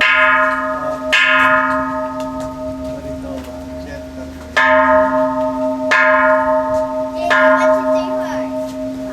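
Japanese temple bell (kansho) struck five times at uneven intervals, two of them in quick succession. Each strike rings out bright and fades, over a steady low hum that carries on between strikes: the Jyo-ya no Kane New Year's Eve bell ringing.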